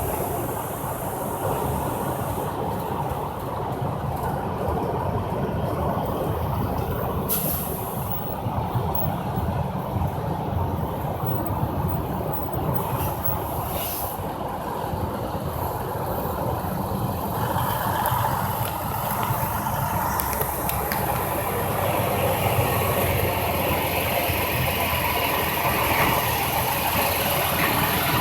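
Heavy truck traffic on an interstate highway: a steady rumble of diesel engines and tyre noise. Two short, sharp hisses come about 7 and 14 seconds in.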